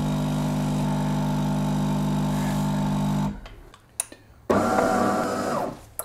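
De'Longhi Dinamica Plus superautomatic coffee machine's pump humming steadily while it brews espresso onto the milk, cutting off suddenly about three seconds in. A sharp click follows, then a shorter, higher-pitched hum from the machine for about a second.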